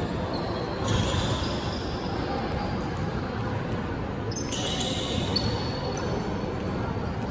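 Basketball bouncing on a gym floor, echoing in a large sports hall, with brief high-pitched sounds about a second in and again about four and a half seconds in.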